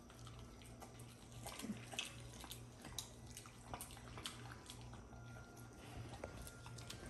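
A dog nosing through a platter of dry hay and chewing the food hidden in it: scattered crisp rustles, crunches and wet mouth smacks, over a steady low hum.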